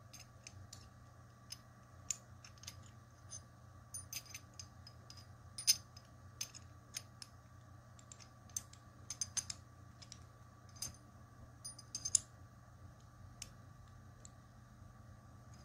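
Small metal puzzle pieces clicking and clinking against each other as they are turned and slid together in the hands: short, irregular, sharp clicks, the loudest about six seconds in and again about twelve seconds in.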